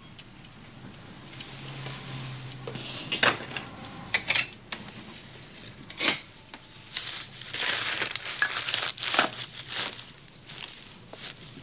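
Hands rummaging through a drawer of cloths: fabric rustling and crinkling, broken by several sharp knocks and clicks.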